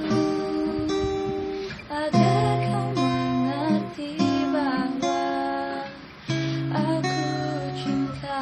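Acoustic guitar strummed, playing a run of sustained chords that change every second or two.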